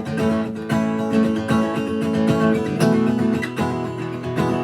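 Acoustic guitar strummed in a steady rhythm: an instrumental break in a song.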